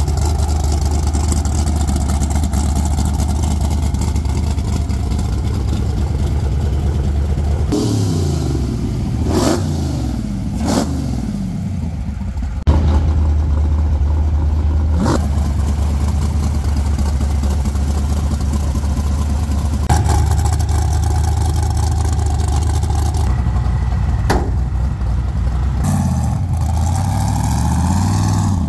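Whipple-supercharged LS V8 engine running at a steady idle, blipped up and down in a few quick revs about eight seconds in and revving again near the end.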